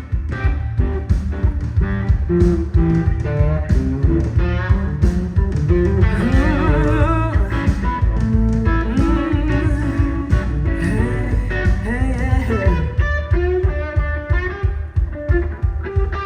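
Live blues-rock band playing an instrumental passage: electric guitar lead with bent, wavering notes over a steady bass and drum groove.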